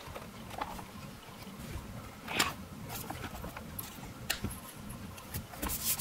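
Hands handling a plastic keyboard's underside: soft rubbing with a few scattered light clicks and taps, the clearest about two and a half seconds in and a small cluster near the end.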